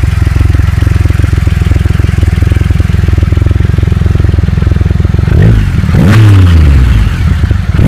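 Triumph Rocket III Roadster's 2.3-litre inline three-cylinder engine idling in neutral, then revved twice in the last few seconds, the revs rising sharply and falling back each time, with another rev starting at the very end.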